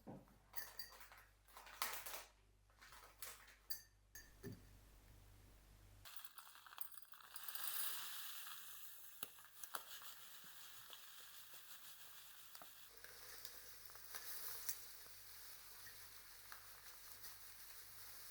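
Light clinks and knocks of kitchenware for the first few seconds, then a steady sizzling hiss that runs on to the end.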